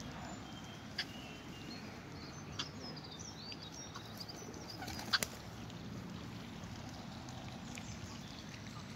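Outdoor bird sounds: a run of high, quick chirps near the middle, and a few short sharp calls or clicks, the loudest about five seconds in, over a steady low background rumble.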